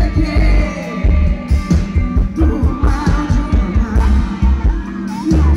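Live band music played loud through a PA, with a woman singing over a heavy, steady bass beat.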